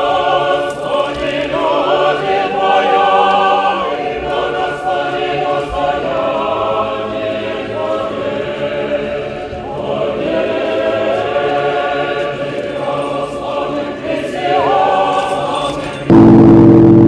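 Church choir singing an unaccompanied Orthodox chant. Near the end, a large newly consecrated church bell is struck once. It gives a sudden, loud, deep toll that rings on.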